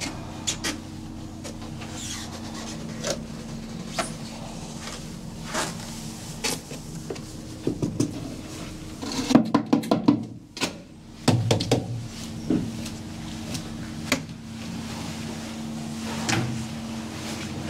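A steady low hum under scattered knocks, taps and handling clatter, busiest about halfway through, from work with cups of expanding foam in a cramped boat hold.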